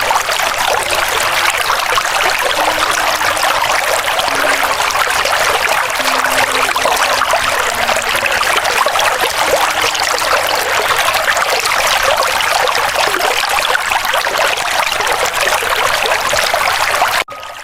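River water flowing in a steady, dense trickle, with a few faint held low notes beneath it. It cuts off suddenly near the end.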